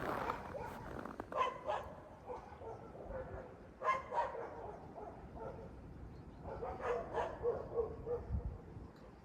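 A dog barking in short pitched calls: a couple of barks about a second and a half in, two more about four seconds in, then a quicker run of barks and yips near the end.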